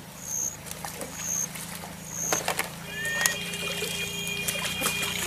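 Water splashing and slapping as people bathe and wash clothes in a shallow river pool, with scattered sharp knocks. A short high chirp repeats about every two thirds of a second, and a faint steady low hum lies underneath.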